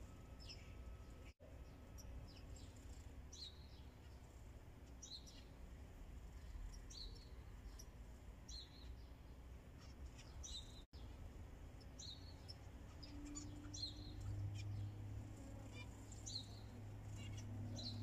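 Zebra finches calling: faint, short, high chirps, one every second or so. A low steady hum comes in about two-thirds of the way through.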